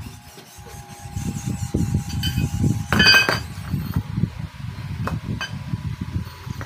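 Cut 304 stainless steel tubes knocking and clattering against each other and the concrete floor as they are laid out and fitted together, with one bright ringing metallic clink about three seconds in.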